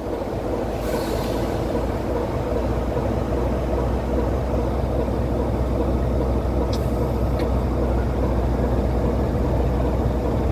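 British Rail Class 33 diesel locomotive on the move, its Sulzer eight-cylinder engine giving a steady low drone over the rumble of wheels on the track, growing slightly louder. Two short clicks come a little after halfway.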